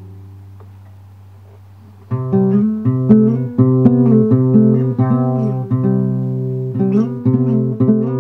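Guitar music: a held chord fades away, then plucked guitar playing comes in sharply about two seconds in and carries on note by note.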